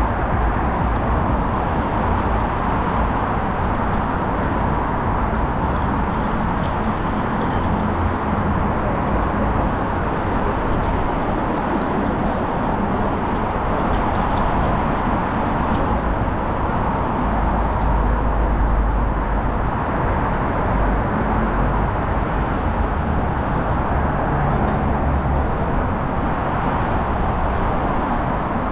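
Steady city street traffic noise, with cars going by.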